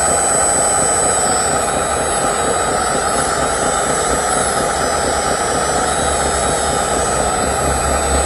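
Radio-controlled model Komatsu PC60 excavator running as it digs and swings its bucket, a steady, unbroken mechanical drone with a low hum that grows stronger about halfway through.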